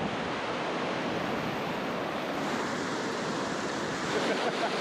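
River water rushing steadily, a fast-flowing current with a strong pull.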